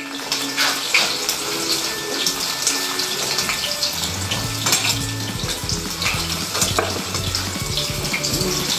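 Cauliflower sizzling in a hot pan, with the clicks and scrapes of a spoon stirring it, over background music that picks up a bass line about halfway through.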